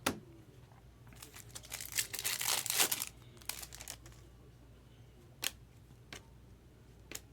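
Foil trading-card pack wrapper being crinkled and torn open by hand, with a few sharp clicks of card handling.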